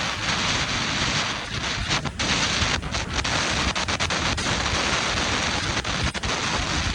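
Wind rushing over the microphone of a camera on a moving motorbike, a loud steady hiss that briefly drops out several times.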